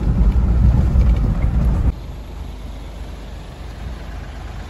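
Road and engine noise inside a moving car's cabin, a loud low rumble that cuts off suddenly about two seconds in, leaving a much quieter steady hum.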